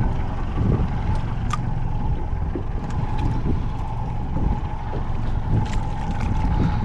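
Wind rumbling on the microphone and water moving around a small fishing boat's hull, with a steady tone running underneath and a few faint clicks.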